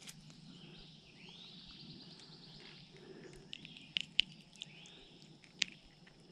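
Birds calling in arching, rise-and-fall phrases every few seconds over a low steady hum, with a few sharp clicks about four and five and a half seconds in from pliers working a hook free of a small fish.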